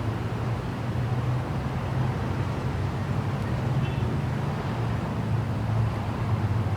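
Steady low rumble of a vehicle engine with road and traffic noise.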